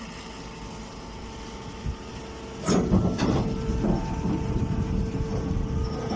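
Miniature automatic hay baler running with a steady hum. A little under three seconds in, it clunks twice and breaks into a louder, rougher rumble as it works.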